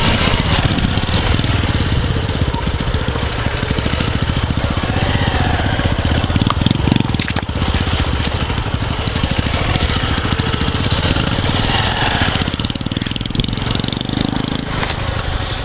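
Motorcycle engine running steadily, a fast continuous throb with no break.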